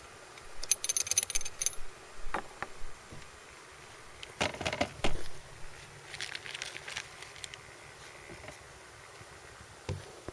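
Light clicks and rattles of small hard objects being handled, in several short bursts with quiet between them.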